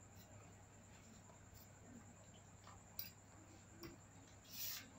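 Near silence: faint room tone with a steady low hum, two faint clicks about three and four seconds in, and a soft rustle near the end.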